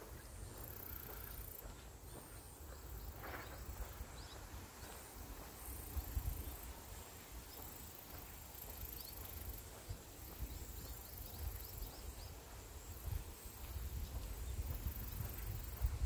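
Wind rumbling on the microphone and rustling through tall silver grass, with a faint high-pitched buzz that pulses every second or two.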